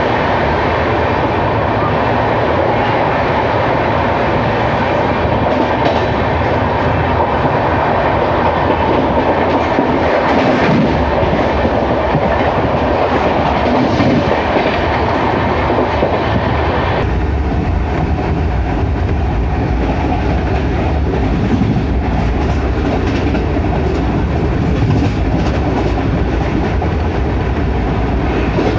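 Passenger train running at speed, with a steady noise of wheels on the rails and a moving coach. About two-thirds of the way through, the sound turns deeper and duller.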